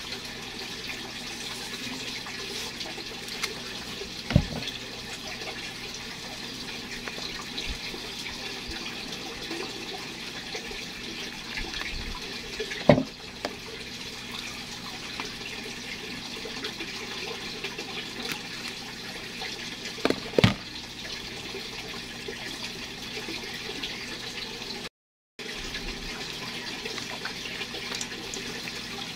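A steady hiss like running water, with three sharp knocks spread through it.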